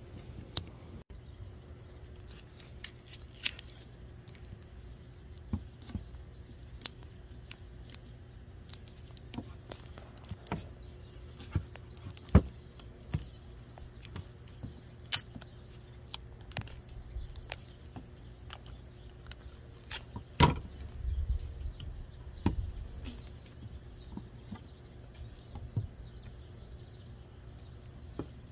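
Scattered small clicks, scratches and crinkles of fingers picking and peeling a sticker label off a heater hose, with a few sharper clicks, over a faint steady low hum.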